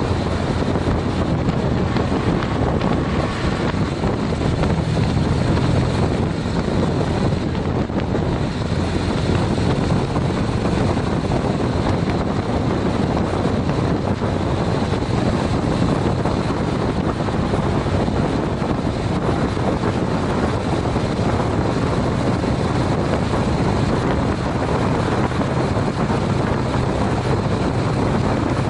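Steady wind rush on the microphone over the running engine and tyre noise of a Honda CTX700N motorcycle's 670 cc parallel-twin, cruising at highway speed around 50 mph.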